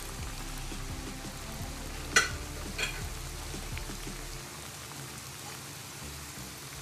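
Churro dough frying in hot oil in a saucepan: a steady bubbling sizzle. Two sharp clicks come a little over two seconds in, about half a second apart, the first the loudest sound.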